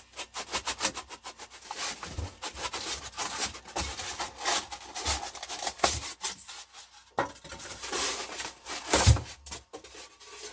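Insulation being pulled and scraped away from the inside of a boat's hull: quick runs of short scratching and rubbing strokes with brief pauses.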